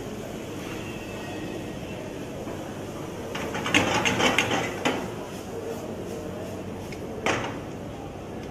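Wooden spatula stirring and scraping a peas filling in a nonstick frying pan, with a burst of quick scrapes and knocks against the pan around the middle and one more sharp knock near the end, over a steady low hiss.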